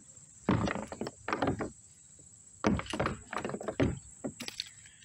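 A run of irregular knocks and thumps, about six in four seconds, as a largemouth bass is landed and handled in a plastic fishing kayak.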